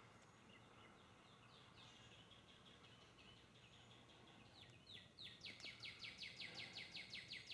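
A small songbird singing: a series of short down-slurred chirps that speed up into a fast trill over the last two seconds, against a quiet background.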